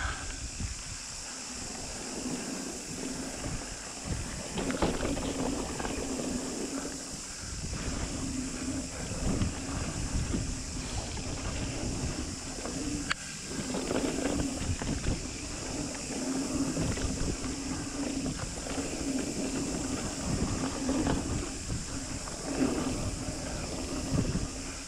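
Mountain bike rolling fast down a dirt trail: tyres rumbling over the ground, wind on the microphone, and rattles and knocks over bumps. A buzzing hum comes and goes, and there is one sharp click about halfway through.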